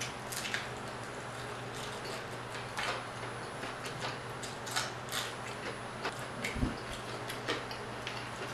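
Scattered faint crackles and clicks of crispy fried croaker being picked apart with fingers and chewed, with one soft low thump about two-thirds of the way in.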